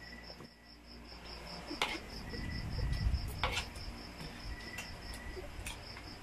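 Insect chirping in a steady, rapid, high-pitched pulse, with spoons and forks clinking on plates a few times.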